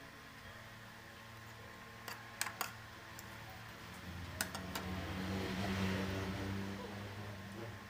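Metal spoon clicking against a plate a few times, about two seconds in and again around four and a half seconds in, over a steady low hum.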